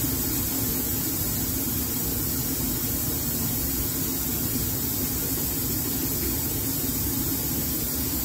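Steady hiss of a lab vacuum line sucking air through a vacuum filtration setup (filter flask and funnel), over a constant low hum.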